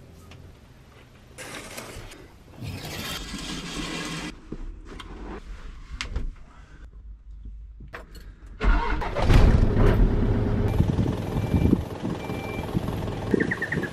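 A small bus's engine starts about two-thirds of the way in and keeps running. Before that there are quieter noises and a few clicks. Near the end come two short beeps and then a quick run of beeps.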